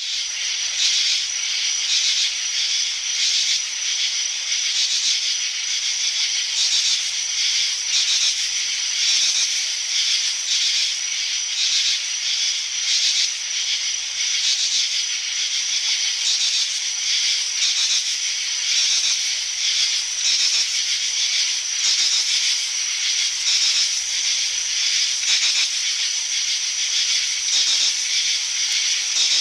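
Field insects chirring in a dense, steady, high-pitched chorus with a fast pulsing shimmer.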